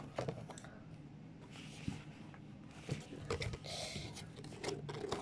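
Quiet rustling and a few light taps from Pokémon trading cards and paper being handled and sorted.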